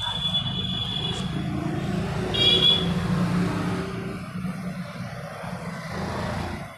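Single-cylinder four-stroke motorcycle engine, the Hero Splendor Plus's, running steadily at low revs. A brief high-pitched tone comes about two and a half seconds in, and the sound cuts off sharply at the end.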